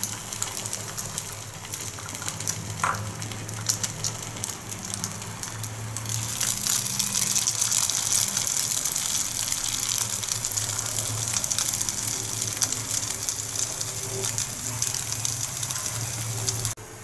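Egg-soaked bread slices sizzling in ghee on a hot cast-iron tawa, a steady crackling fry with many small pops. It grows louder about six seconds in, when the second slice is down, and cuts off abruptly near the end.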